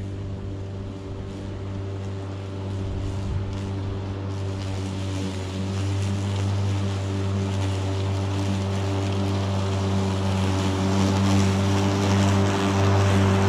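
Stiga Twinclip 950e 48-volt battery lawnmower running through high grass: a steady motor-and-blade hum with a rushing hiss of cut grass that grows louder toward the end.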